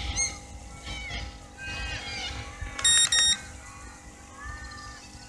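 Two short electronic beeps back to back, about three seconds in, are the loudest sound. Around them are faint, scattered bird chirps and a low, steady hum.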